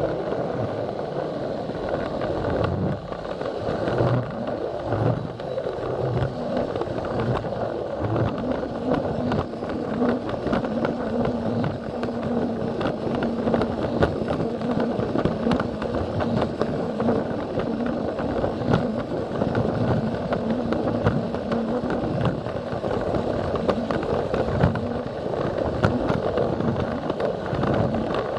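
Plarail toy train running on plastic track: its small battery motor whirring, with wheels clicking rapidly over the track joints. A steady hum sits under the clatter for most of the run.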